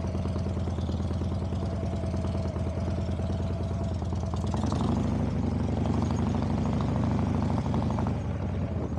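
Harley-Davidson Dyna's V-twin engine idling with a rapid, even beat, then running a little harder and louder about halfway through.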